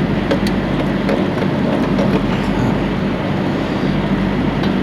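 Diesel engine running steadily at idle, with a few light clicks near the start and again near the end.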